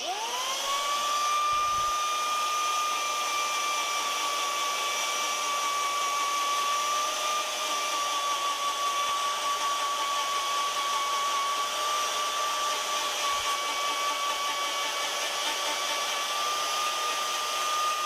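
Electric power-carving tool switched on, its motor spinning up to speed in the first moment and then running steadily with a high-pitched whine, the pitch dipping slightly now and then.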